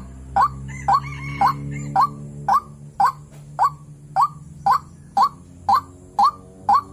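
White-breasted waterhen (ruak-ruak) calling: a short rising note repeated steadily about twice a second. This is the female's call used to lure males.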